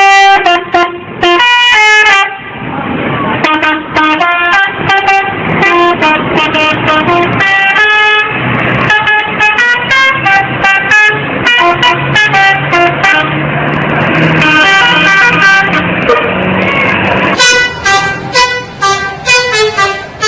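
Telolet bus horn: a set of multi-tone air horns playing a quick melody of short stepping notes, over and over.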